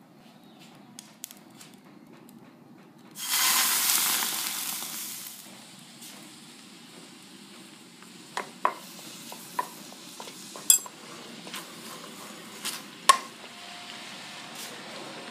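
Liquid hits a hot frying pan with a sudden loud sizzle about three seconds in, after a faint low hiss from the pan heating. The sizzle fades to a steady bubbling fry while a spatula and spoon stir curry paste, with several sharp clicks of the utensils against the pan.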